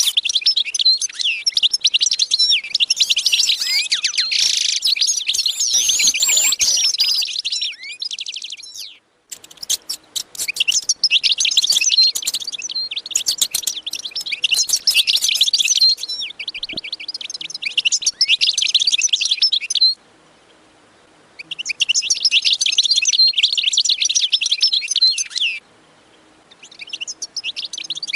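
Many small birds chirping and twittering in a dense, rapid chorus, in stretches that cut off abruptly several times.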